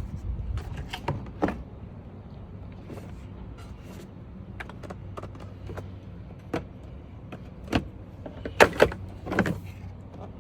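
Plastic clicks and knocks as the two halves of a rear AC evaporator box housing are handled and pulled apart, with a few louder knocks near the end. A steady low hum runs underneath.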